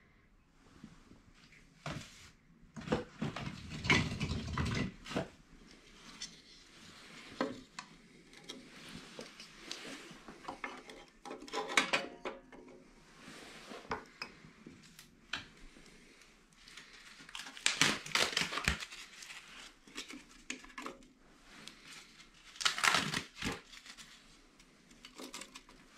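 Pieces of firewood and kindling being laid into a Cubic mini wood stove's small steel firebox, clunking and scraping against the metal. The sounds come in irregular clusters of knocks with short pauses between them.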